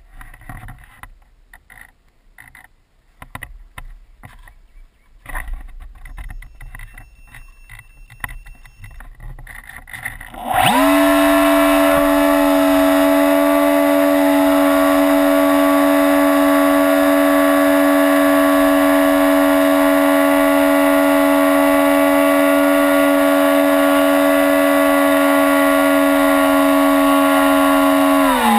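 Radio-controlled model airplane's motor and propeller, spinning up quickly after about ten seconds of light handling knocks and wind noise, then running at a steady, high whine through takeoff and climb.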